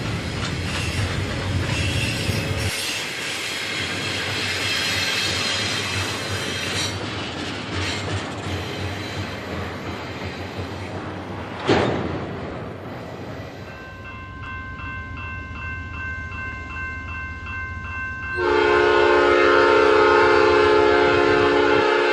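Wheel and rail noise from a double-stack container train rolling past, dying away over the first half, with a single sharp crack about halfway through. Then a diesel locomotive horn sounds, faint at first and then a loud, steady chord over the last few seconds as the locomotive approaches.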